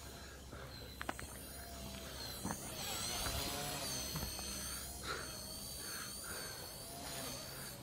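Faint high whine of a small electric collective-pitch RC helicopter in flight, its pitch wavering up and down, with a few light clicks.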